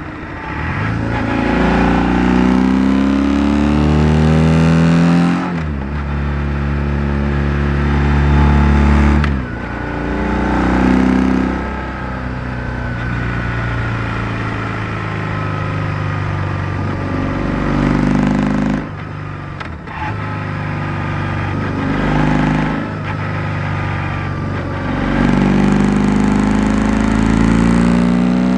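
BMW R1100R's flat-twin boxer engine under way, picked up close from under the seat. Its pitch climbs over several seconds at a time as the bike accelerates, breaks off sharply a few times when the throttle closes, and holds fairly steady in between.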